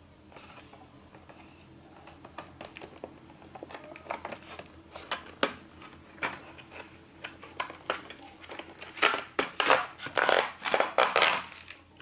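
Stiff clear plastic and cardboard packaging crackling and snapping as it is pulled apart by hand. Scattered clicks at first, growing into dense, louder crackling over the last three seconds.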